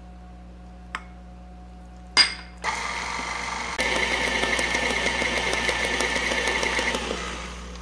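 KitchenAid stand mixer running with a flat paddle beater, mixing eggs into thick cheesecake batter in a stainless steel bowl. A low steady hum, a sharp clink a little over two seconds in, then the motor and paddle whir much louder and steadily for about four seconds before dropping back near the end.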